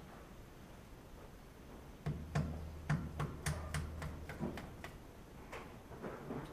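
Metal clinks and knocks from muck spreader flail chains and fittings being handled. A quick, irregular run of about ten sharp clinks starts about two seconds in, and a few fainter ones follow near the end.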